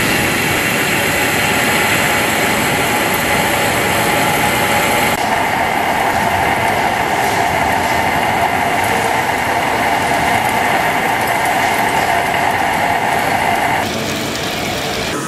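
Steady metal-machining noise from lathes turning large steel bearing rings. A steady mid-pitched tone joins about a third of the way in and drops out shortly before the end, where the sound grows slightly quieter and changes character.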